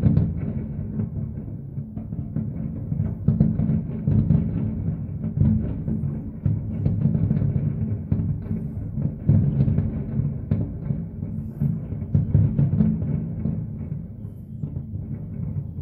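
A fireworks barrage: many aerial shells bursting in quick succession, running together into a continuous rolling rumble of low booms.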